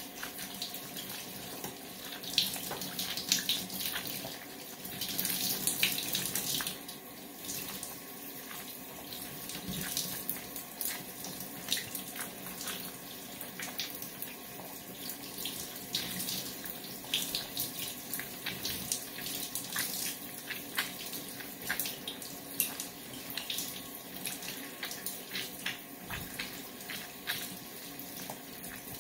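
Shower spray running steadily, with frequent short wet clicks and smacks on top.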